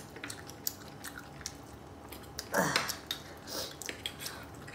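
Metal fork and spoon clicking and scraping against a ceramic dinner plate in short, scattered taps, with soft chewing. About halfway through comes one louder, longer sound that falls in pitch.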